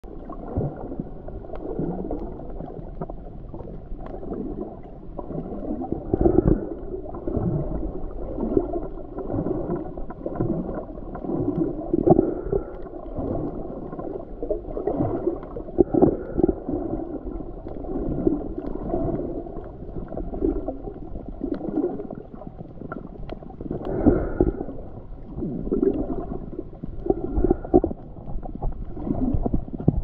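Muffled underwater sound picked up by a submerged camera: water rushing and gurgling, with louder surges every few seconds.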